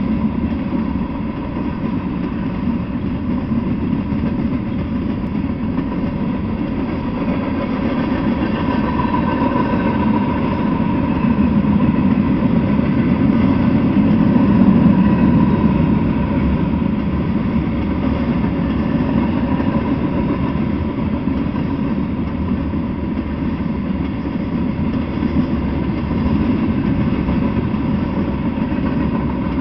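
Freight train cars rolling past on the track: a steady rumble of wheels on rail, swelling a little about halfway through. Bulkhead flatcars loaded with long steel pass first, then covered hopper cars.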